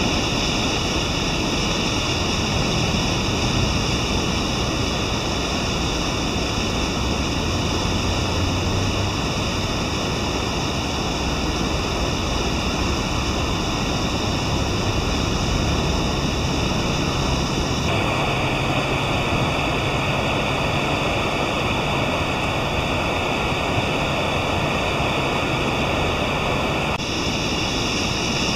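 Steady rushing of a large river's flowing water, an even hiss and rumble without pauses.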